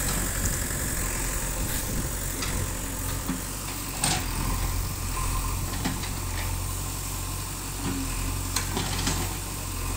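The diesel engine of a JCB backhoe loader runs steadily at a low hum, with a few short, sharp knocks or clanks now and then, the loudest about four seconds in.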